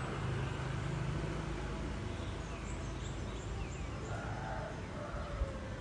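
Small garden birds chirping: a quick run of short, high chirps about halfway through, over a steady low rumble of distant traffic.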